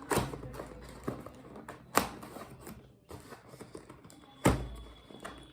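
Cardboard box and packaging being handled: three loud knocks about two seconds apart, with small clicks and rustling between.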